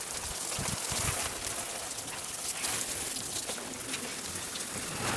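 Water from a garden hose spraying over potted and hanging plants: a steady hiss of spray splashing on the leaves.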